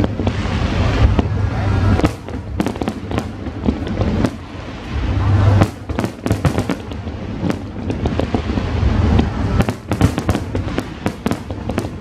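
Aerial fireworks display going off: a dense run of sharp bangs and crackling, with deep booms from the shell bursts, over music.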